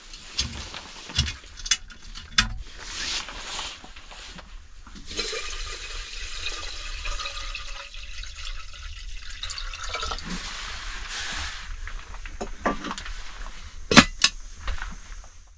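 A few knocks and clicks of handling at the stove, then water poured from a plastic bottle into an enamel kettle, a steady splashing for about five seconds. Near the end, the kettle's lid goes on with a sharp clank, the loudest sound.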